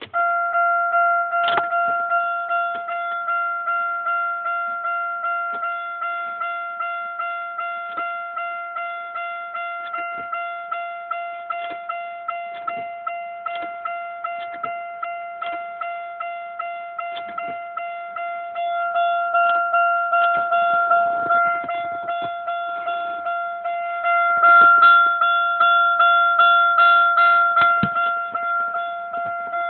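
2001 Buick Regal GS dashboard warning chime dinging over and over, about two dings a second, on one steady pitch. It grows louder about two-thirds of the way through, and a few clicks and knocks sound over it.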